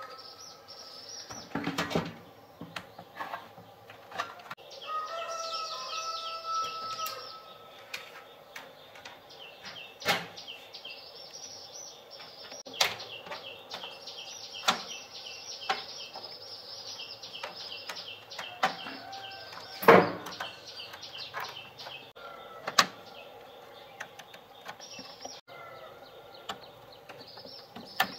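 Small birds chirping in quick, repeated high-pitched series, with sharp knocks every few seconds; the loudest knock comes about two-thirds of the way in.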